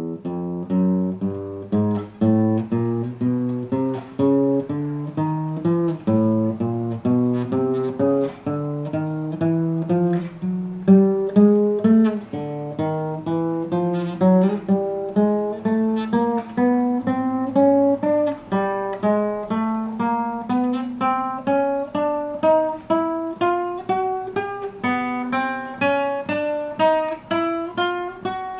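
Acoustic guitar (violão) playing single plucked notes one after another, about two a second, climbing step by step in pitch as it works fret by fret up the neck.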